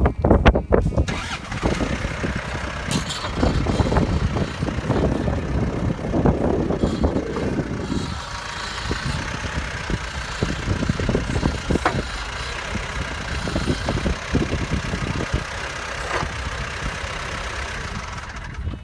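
An engine running, uneven and louder for the first several seconds, then steadier.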